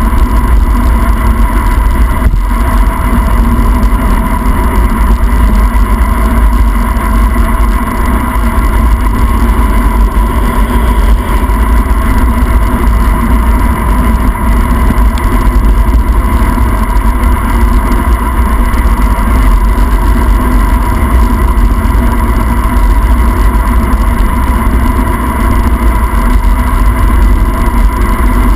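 Loud, steady wind rush buffeting the microphone of a handlebar-mounted camera during a fast bicycle descent, over the hiss of tyres on wet asphalt.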